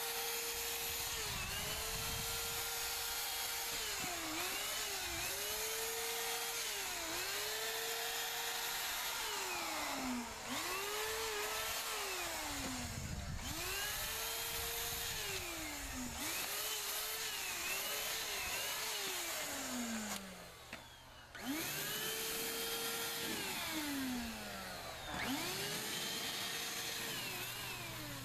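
Handheld Wagner electric paint sprayer spraying Plasti Dip, its motor whining steadily. The pitch sags and climbs back several times, and the sprayer stops briefly about twenty seconds in.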